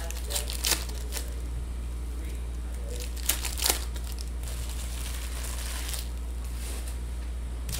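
Foil wrappers of Panini Optic basketball card packs being torn open and crinkled, with sharp crackles about half a second in and again around three and a half seconds, over a steady low hum.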